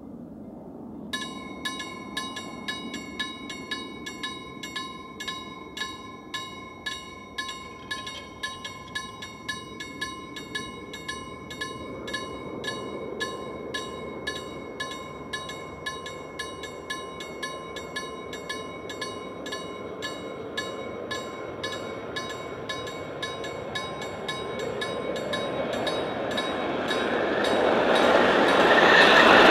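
Level crossing warning bell, starting about a second in and ringing steadily about twice a second. Over the last few seconds the rumble of an approaching electric express train rises until it is the loudest sound.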